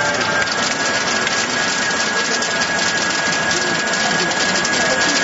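VERKON PAB-350 vertical twin-spindle machine running steadily, a continuous mechanical noise with a constant high whine.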